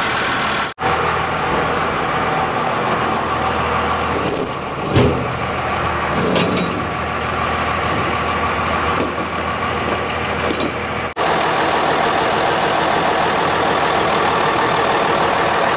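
1997 12-valve Cummins 5.9-litre inline-six turbo diesel idling steadily. A brief high squeak and some clatter come about four to seven seconds in, and the sound cuts out for an instant twice.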